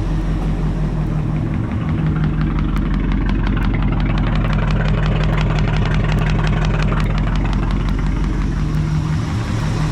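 Ford 390 FE big-block V8 idling steadily, freshly tuned up and sounding really good, with a fast, light ticking over it through the middle seconds.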